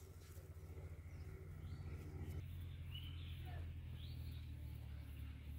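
Quiet outdoor pond-side ambience: a low steady rumble with a few short bird chirps around the middle.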